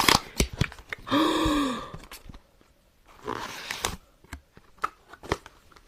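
Close-up clicks and taps of a small cardboard box and its packaging being handled and opened, with a soft rustle about three seconds in. About a second in a drawn-out, awed "oh" is voiced.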